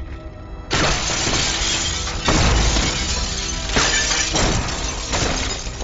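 Glass shattering in a sudden loud crash about a second in, followed by three more waves of breaking glass, over film music.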